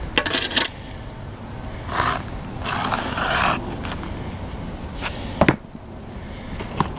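Gritty scraping of a steel spade and stone slabs against soil and stone, in several short bursts, with a sharp knock about five and a half seconds in.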